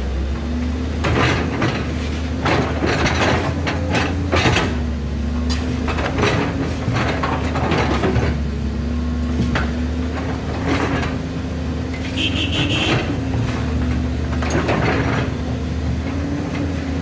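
Komatsu PC210 excavator's diesel engine running steadily, with repeated knocks and scrapes of the steel bucket digging into hard, rocky soil.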